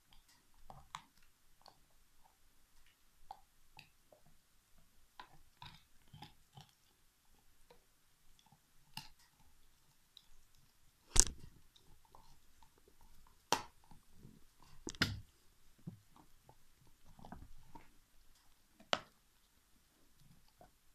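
Alaskan Malamute gnawing a big turkey bone: irregular chewing with scattered crunches of teeth on bone, and a few louder sharp cracks, the loudest about halfway through.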